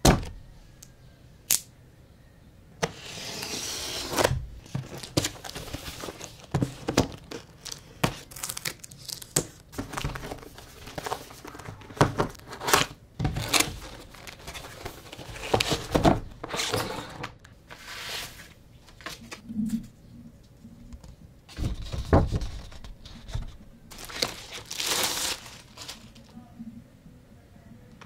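Close-up unboxing handling sounds: tape tearing and plastic wrapping crinkling as a parcel is opened, with many short knocks and scrapes of the box being handled. There are two longer tearing stretches, one about three seconds in and one near the end.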